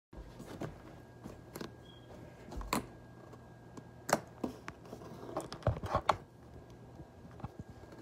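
Clear glitter slime being stretched and pressed by hand, giving off irregular sharp clicks and pops. The slime is still too stiff: it has to be worked to get stretchier and lose this sound.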